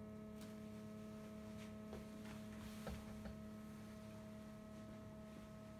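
A faint steady hum at one low pitch with a few higher overtones, with a few light ticks about two and three seconds in.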